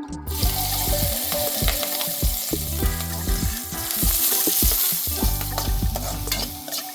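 Food sizzling in hot oil in a pan while being stirred, with short knocks and scrapes of a spatula against the pan. The sizzle starts abruptly at the very beginning.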